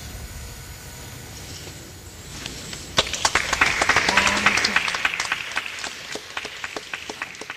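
Audience applause breaking out suddenly about three seconds in, peaking quickly and then thinning out, over a low background hum.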